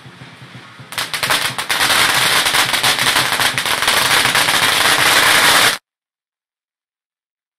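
A string of firecrackers going off in a rapid, dense crackle of loud bangs. It starts suddenly about a second in and cuts off abruptly just before six seconds.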